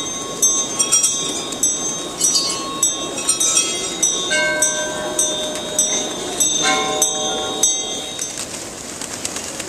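Small metal bells ringing in a steady run of clinks, about two a second, each leaving a high ringing tone, with a few deeper bell tones in the middle. The ringing stops near the end.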